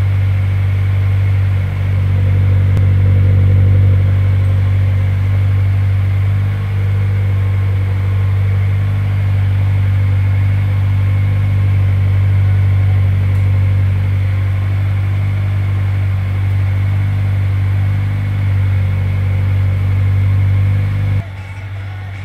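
Subaru WRX S4's turbocharged flat-four running through a Fujitsubo aftermarket muffler, held at a steady high rpm of about 4000. The exhaust note is loud and unchanging in pitch. Near the end it drops suddenly to a much quieter engine idle.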